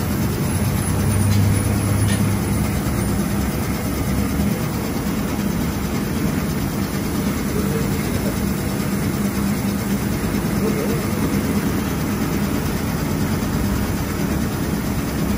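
Electric meat slicing machine running steadily, its motor and cutting blades giving an even mechanical hum.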